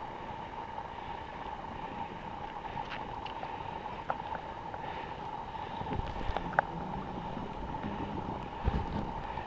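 Faint wind buffeting the microphone over a steady hiss, with uneven low rumbles and a few small clicks.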